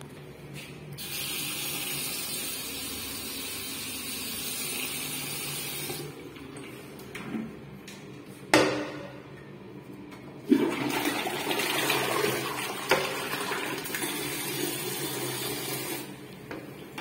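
A bathroom sink tap runs with a high hiss for about five seconds and then stops. A couple of seconds later the toilet lid knocks once. The toilet is then flushed: a sharp start, then water rushing through the bowl for about five seconds before it cuts off.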